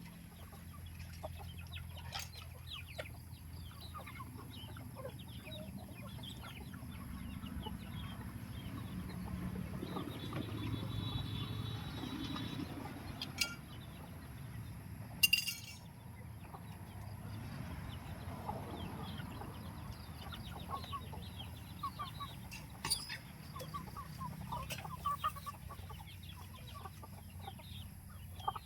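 A flock of free-range chickens clucking softly while foraging, with many short scattered calls and ticks over a low steady rumble. A few sharp clicks stand out, the loudest about halfway through.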